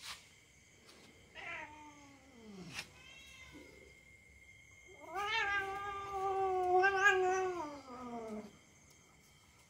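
Domestic cat yowling while a dog mouths it in a play-fight: a short yowl falling in pitch, then a longer, louder yowl that holds steady and drops off at the end.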